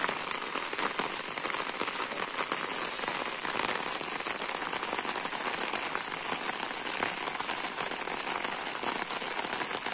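Steady rain falling on puddled bare earth, a dense patter of individual drops over an even hiss.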